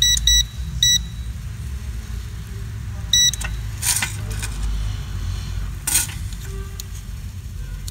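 Short electronic beeps from an ANENG M118A digital multimeter as its test probes touch points on a power-supply circuit board: three quick beeps within the first second and one more about three seconds in. Two brief rustles of the board being handled follow, over a steady low hum.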